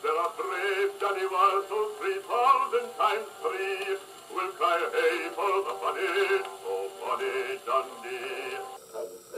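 A 78 rpm shellac record of singing with accompaniment, played acoustically on an HMV 162 gramophone through a metal HMV No. 4 soundbox. The sound is thin and midrange-only, with no deep bass. Near the end it changes abruptly at a splice.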